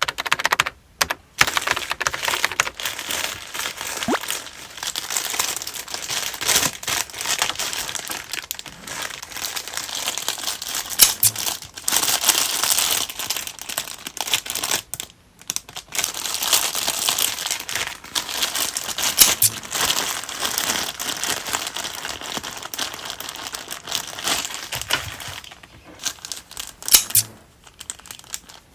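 Packaging crinkling and rustling by hand as purchased goods are unpacked, with many small sharp crackles and clicks and a few brief pauses.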